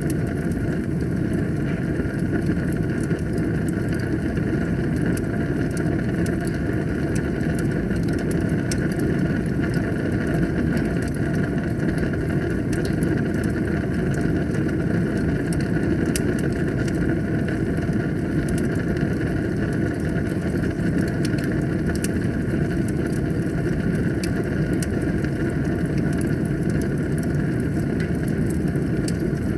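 Wood fire burning in a fireplace: a steady low rumble of flames with frequent small crackles and pops of burning wood.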